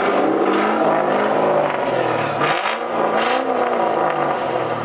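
A car engine being revved, its pitch rising and falling.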